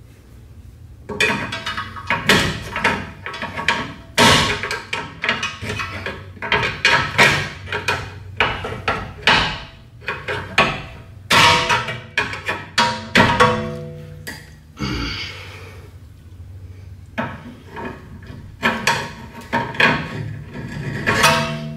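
Irregular series of sharp metallic knocks and clanks, some ringing on briefly, from tools striking steel suspension parts during front strut removal, with a short hiss about fifteen seconds in.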